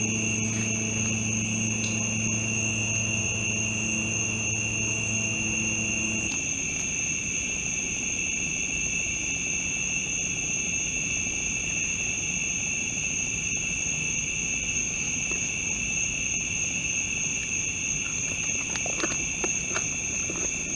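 Night insects buzz steadily at two high pitches. For the first six seconds a low steady motor-like hum sits under them, then stops suddenly. A few light clicks come near the end.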